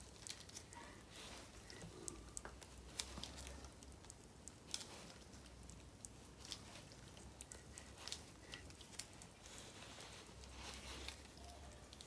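Faint scattered clicks and rustles of the crown wheel on a Quaife ATB limited-slip differential being turned by a gloved hand against the pinion under tension, rolling the gears through their mesh to print the contact pattern in the blue marking paint.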